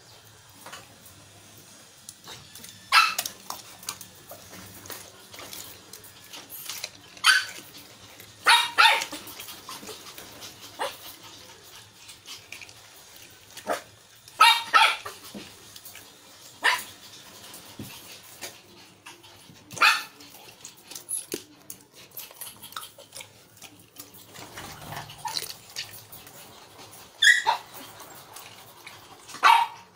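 A dog barking in about ten short, sharp single barks, spaced irregularly with some in quick pairs.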